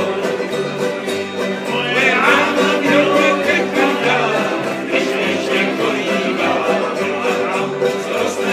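Live acoustic string-band music: a banjo being picked along with strummed acoustic guitars in a steady, rhythmic tune.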